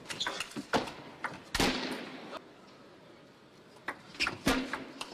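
Table tennis rally: a celluloid ball clicking off the bats and table several times. About a second and a half in there is a loud hit followed by a short rush of noise, then quieter, and a few more ball clicks near the end.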